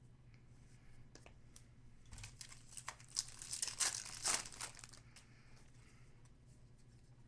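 Trading-card pack wrapper being torn open and crinkled: a burst of crackling from about two seconds in to about five seconds, loudest near the middle, with a few faint clicks of card handling around it.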